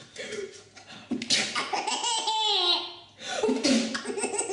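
A sudden sneeze about a second in, then a baby laughing: a high, wavering squeal followed by a string of short giggling bursts.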